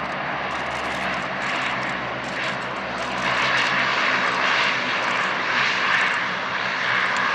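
Lockheed C-130 Hercules's four turboprop engines running as the aircraft rolls along the runway after touchdown: a steady low propeller hum under a rushing noise that grows louder about three seconds in.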